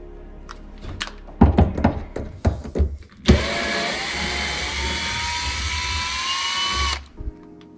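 A few clicks and knocks, then a Ridgid cordless drill/driver runs for about four seconds, backing a screw out of a kitchen cabinet door hinge, its whine rising slowly in pitch before it stops.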